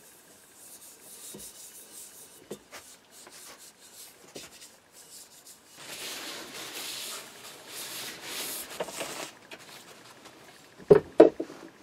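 Paper towel rubbing and wiping over a billhook's wooden handle and steel blade for a few seconds, then two sharp knocks near the end as the billhook is set down on the wooden workbench.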